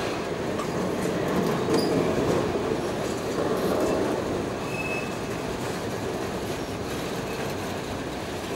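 Freight train cars, auto carriers, rolling past: a steady rumble of steel wheels on rail with scattered faint clicks, and a brief faint wheel squeal about five seconds in.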